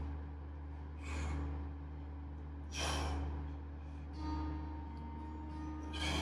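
A man breathing hard through a set of Svend presses with a 10 kg weight plate, a sharp breath out with each rep about every one and a half seconds. Faint music and a steady low hum lie underneath.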